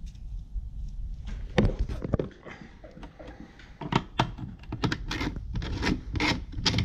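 Sharp plastic clicks and knocks from handling a plastic oil jug and its cap next to a plastic oil drain container. They start about a second and a half in and come thicker in the second half.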